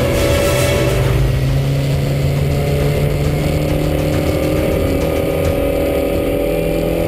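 Boat engine running steadily under way, heard from inside the boat's cabin, with a low hum whose pitch drifts slightly.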